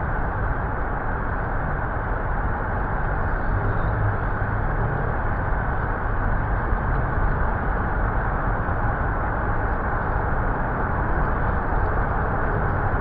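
Steady, loud roar of Niagara Falls, a constant rush of falling water.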